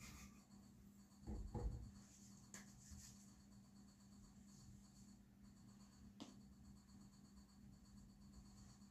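Near silence with faint handling sounds: a couple of soft bumps about a second and a half in, then a faint click or two as a small object is fiddled with in the hands.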